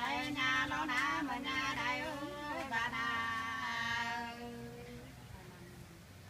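Unaccompanied sli, the Nùng folk song of Lạng Sơn: a single high voice holds long, wavering notes, then fades out about five seconds in.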